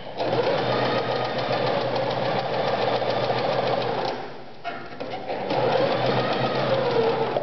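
Privileg Super Nutzstich 1511-1 domestic electric sewing machine running and stitching cotton fabric, a fast, even needle clatter. It slows to a near stop about four seconds in, then runs at full speed again until the end.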